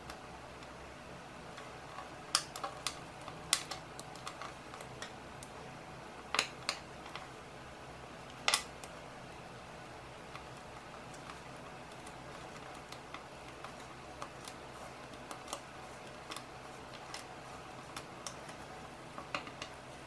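Small magnetic balls clicking as they are snapped together and pushed into place by the fingers: irregular sharp clicks, the loudest in the first half and a few more near the end, over a faint steady hum.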